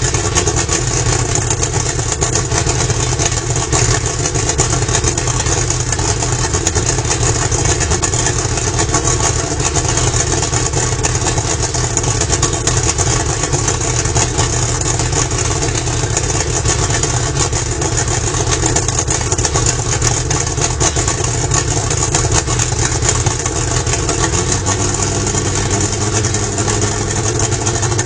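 Yamaha V-MAX 225 hp two-stroke V6 outboard running out of the water on a flushing kit, idling steadily; about 24 seconds in its note rises as the engine is revved up a little. It runs cleanly, with no sign of trouble.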